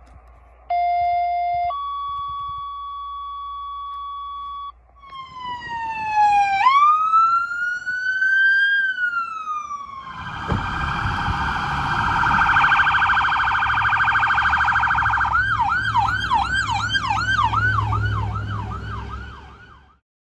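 Electronic emergency-vehicle sirens from a fire chief's SUV and an ambulance on a response. Two short steady tones are followed by a siren winding up and down in a wail, then a rapid warble, and near the end a yelp of about two rises a second. A low engine rumble runs beneath the second half.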